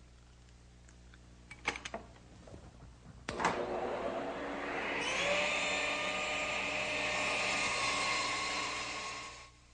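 Table saw switched on with a click, its motor whining up to speed and then running steadily while a board is crosscut through the blade. A few light knocks come before it starts, and the saw sound stops abruptly near the end.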